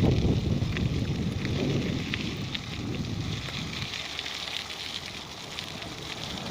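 Wind buffeting the microphone, a rough low rumble with crackle that is strongest at first and eases after about three seconds.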